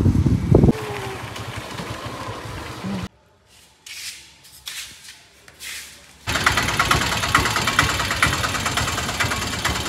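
A Piaggio three-wheeled cargo truck's engine running at idle, coming in abruptly about six seconds in. Before it there is a steady rush, then a quiet stretch with a few soft knocks.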